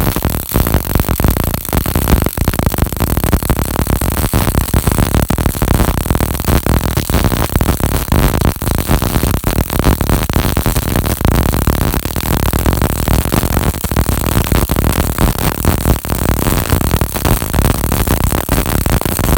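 Panasonic 350 welding machine running a test weld: the electric arc crackles and sputters continuously and densely, with no break.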